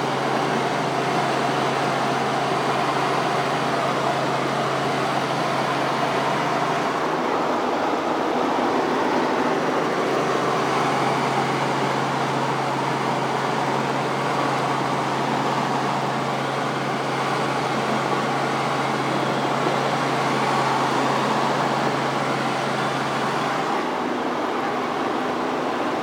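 Cabin noise of a Robinson R44 Raven helicopter in flight, heard from inside the cabin: a steady, even rush of engine and rotor noise. A low hum under it fades out for a few seconds about seven seconds in and again near the end.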